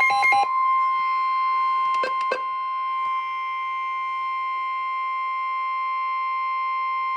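Emergency alert signal: the last of a short burst of warbling data tones, then a long, steady single-pitch alarm tone, the 1050 Hz weather-radio warning tone that announces a new warning message. Two faint clicks about two seconds in.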